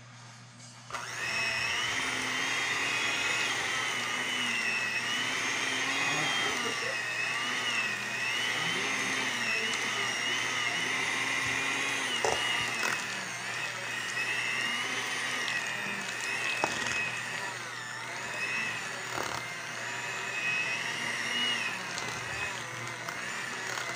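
Electric hand mixer switched on about a second in and running steadily at medium speed, its beaters whipping cream in a stainless steel bowl. The motor's whine wavers slightly, with a few sharp clicks along the way.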